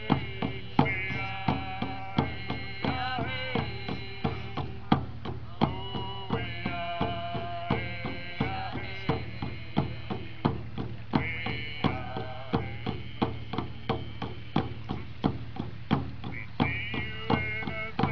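Native American hand-drum song: voices singing together over a steady, even beat of frame hand drums, about two strokes a second.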